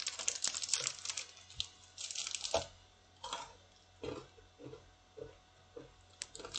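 A crinkly wrapper being handled, crackling in short bursts during the first few seconds and more sparsely afterwards.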